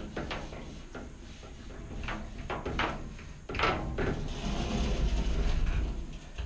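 A microfiber window cloth is rubbed in quick strokes across a textured glass shower door, making a series of short rubbing swipes that come thickest about halfway in. In the second half a low rumble runs underneath.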